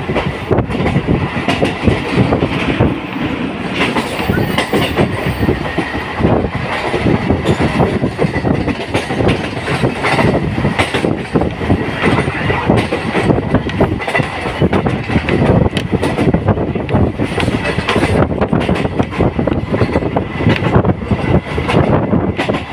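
Running noise heard from inside a moving MEMU commuter train: a steady rumble with wheels clattering over the rails throughout.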